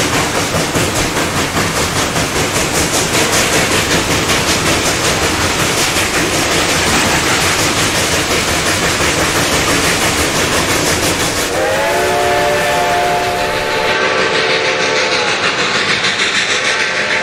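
Reading & Northern 2102, a 4-8-4 Northern steam locomotive, working hard with the throttle wide open, its stack exhaust a loud, rapid, unbroken beat. About two-thirds of the way in, its Reading six-chime whistle blows for a grade crossing, a long blast followed by shorter ones, half drowned out by the exhaust.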